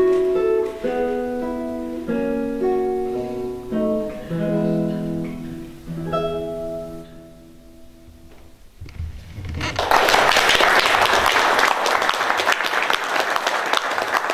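Classical guitar played solo, a plucked melody over bass notes, whose last notes die away about seven seconds in. After a brief pause the audience breaks into steady applause.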